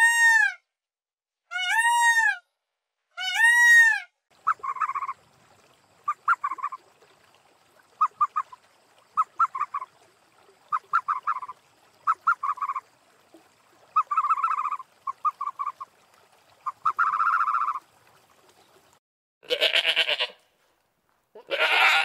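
A succession of animal calls: three clear pitched calls that rise and fall, then a long run of short calls in quick clusters, then two longer, rougher calls near the end.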